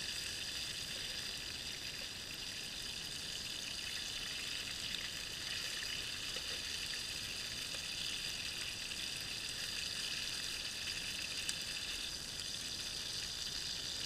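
Small pieces of luderick fillet sizzling steadily as they shallow-fry in hot oil and butter in an electric frypan, with one light click late on.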